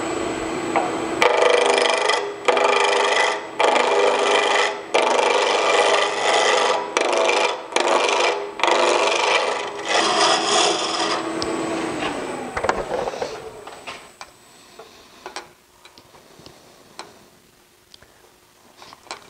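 Spindle roughing gouge cutting a spinning square burl blank on a wood lathe, roughing it to round: about eight loud scraping, rasping passes with short breaks, over a steady motor hum. Near the end the cutting stops and the lathe hum falls away as it spins down, leaving faint handling ticks.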